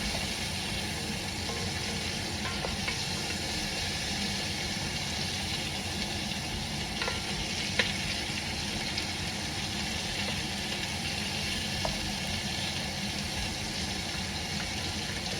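Diced onion sautéing in oil in a Dutch oven, a steady sizzle, with a few light ticks of a utensil against the pot.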